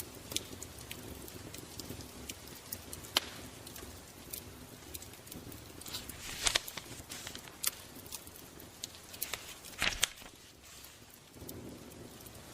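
Sparse, irregular crackles and snaps over a faint steady background, with small clusters of louder snaps about six and ten seconds in.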